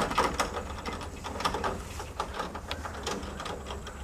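Irregular clanks and knocks of boots and hands on a combine's steel access ladder and grab rails as a man climbs it.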